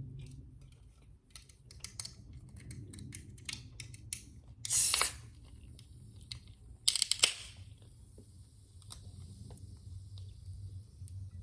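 Close-miked eating sounds: small mouth clicks and chewing, with two short, loud hissing bursts, one about four and a half seconds in and one about seven seconds in.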